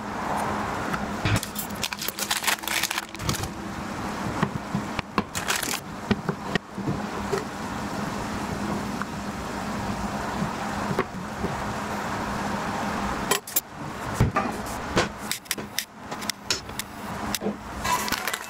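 Kitchen food-prep handling: scattered knocks and clicks of a knife, glass container and ingredients on a counter and cutting board over a steady background hiss with a faint low hum, then a packet of sunflower seeds rustling near the end.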